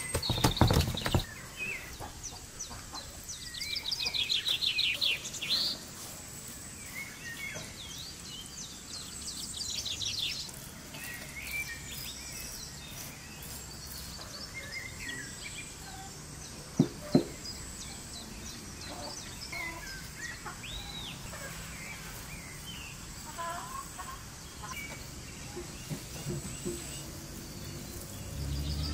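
Birds chirping and calling outdoors, with a fast rhythmic trill a few seconds in. At the very start, hands pat and press soft dough on a floured tray, and two sharp knocks come about halfway through.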